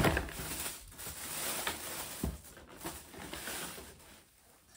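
Paper and cardboard rustling as a white trainer is unpacked from its shoebox, with a sharp knock at the start and another a little past two seconds in. The rustling fades toward the end.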